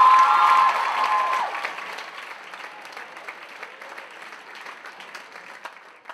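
Audience applauding at the end of a dance performance, with a few held cheering whoops over the first second and a half, then clapping that thins out and fades away.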